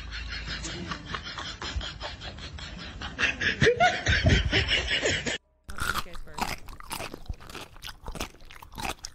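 Soft muffled sounds with a short burst of sliding pitch, then, after a brief cutout, a fast run of crunchy clicks as a cat bites and chews at a sneaker.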